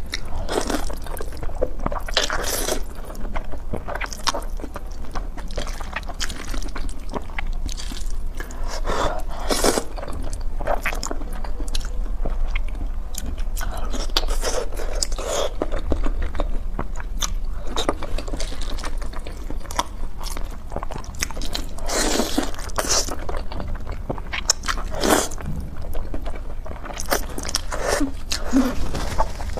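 Close-miked eating sounds: noodles slurped and chewed with wet mouth smacks, and crunchy bites, in irregular bursts over a steady low hum.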